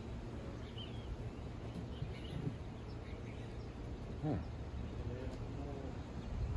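Outdoor ambience: a steady low rumble with scattered faint bird chirps, and one brief louder low sound about four seconds in.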